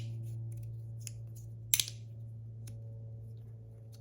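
Scissors cutting tape: scattered light clicks and one sharp snip a little before halfway through.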